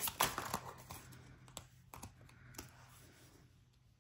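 A tarot deck being shuffled and handled by hand: a quick run of card clicks and flicks in the first second, then a few scattered taps, getting quieter toward the end.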